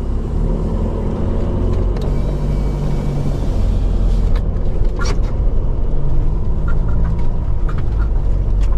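Old motorhome's engine running as it drives along a small road, a steady low drone with a few faint clicks about four and five seconds in.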